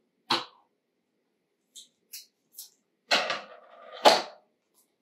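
A small plastic toy leaf being opened by hand: a sharp click just after the start, a few faint ticks, then two short bursts of crinkling packaging about three and four seconds in.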